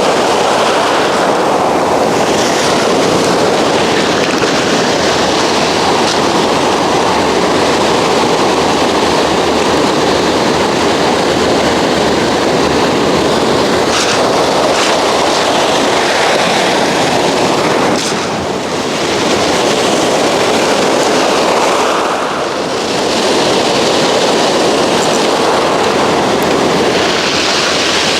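Steady, loud roar of breaking ocean surf at the shoreline, easing off briefly twice in the second half.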